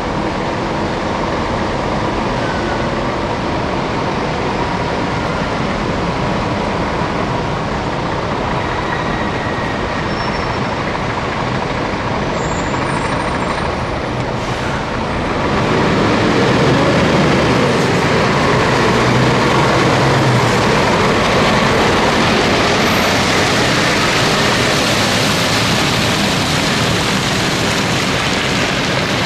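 Scania truck driving: steady engine and road noise that gets louder about halfway through.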